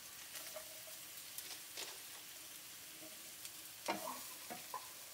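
Sliced onions and garlic sizzling faintly in canola oil in a nonstick pan while a wooden spatula stirs them, with a few light scrapes and knocks; the loudest knock comes about four seconds in.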